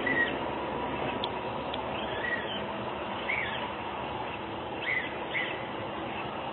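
About six short high chirps, each a quick rise and fall in pitch, coming irregularly over a steady rushing hiss.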